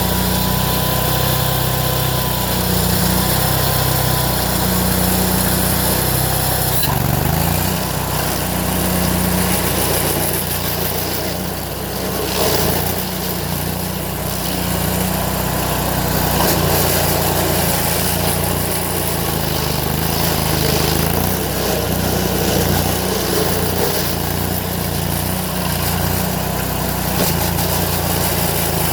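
Stump grinder's engine running steadily while grinding a stump, its note shifting now and then as the load changes.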